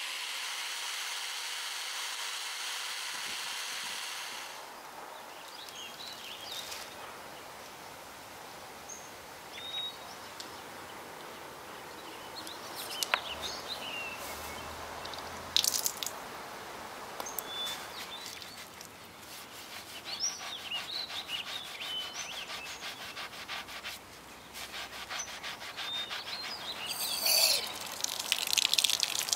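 A polishing wheel runs steadily against the dagger's brass crossguard, stopping about four seconds in. Then a soapy sponge scrubs the dagger in short rubbing strokes while birds chirp, and near the end water from a tap runs over it as it is rinsed.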